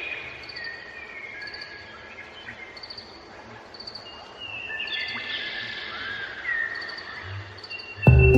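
Birds chirping and whistling: many short calls, rising and falling glides and a high trill that repeats about once a second. Just before the end a loud sound with several held steady notes, likely music, comes in.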